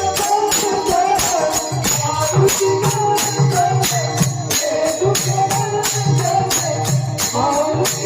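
Marathi kirtan accompaniment: hand cymbals struck in a steady rhythm of about three strokes a second over a low drum, with a wavering sung or played melody above.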